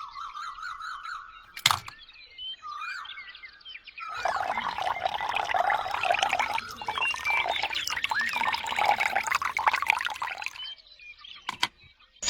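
Small birds chirping: short rising and falling chirps at first, then about a second in a sharp click, and from about four seconds a dense, busy chatter of many calls that thins out near the end.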